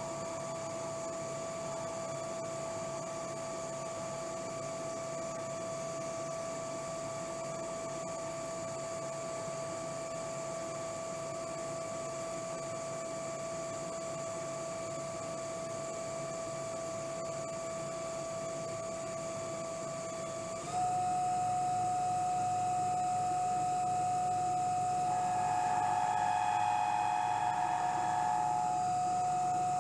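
CNC-converted South Bend lathe turning a spinner ball crank under flood coolant, the coolant splashing over a steady drive whine. About two-thirds of the way through, the whine steps up in pitch and gets louder as the speed changes. Near the end a higher ringing note sounds from the cut for a few seconds, the tool chatter that the speeds and feeds are being tuned to remove.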